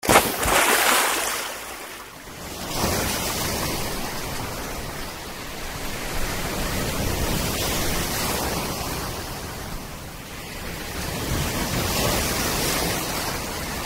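Sea waves breaking and washing in the surf: a loud rushing wash that swells and eases several times.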